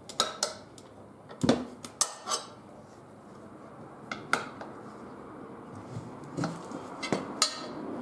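Steel tire levers clinking and scraping against a motorcycle's cast wheel rim as the rear tire's bead is pried off over the rim. There are about eight sharp metallic clinks at irregular intervals.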